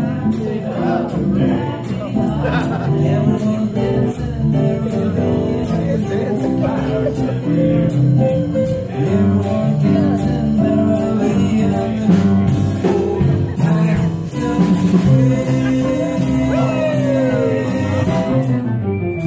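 Live music: an acoustic guitar strummed with a voice singing along, steady throughout.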